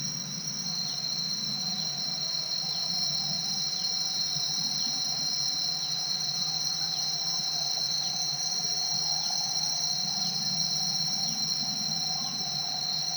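A chorus of insects droning steadily at two high pitches, with a faint falling tick repeating a little more often than once a second. Beneath it runs a low, even rush of river water.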